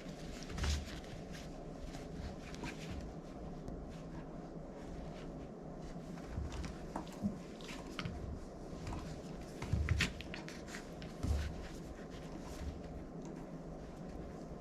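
A litter of puppies moving about: scattered soft thumps, scuffs and clicks, the loudest about ten seconds in, over a steady low hum.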